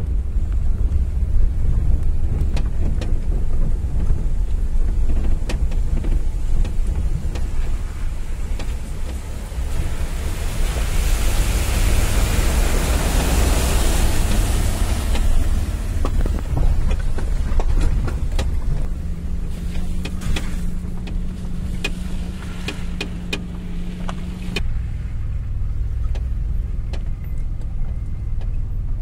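Car running at low speed, heard from inside the cabin, with a steady low rumble from the engine and tyres on a dirt track. About a third of the way in there is a few seconds of hissing crunch as the tyres roll over loose gravel. Later a steady low hum runs for several seconds and stops suddenly.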